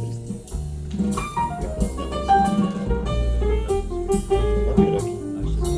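Jazz recording with drum kit, a moving bass line and piano, played from vinyl through open-baffle hi-fi loudspeakers in a demonstration room.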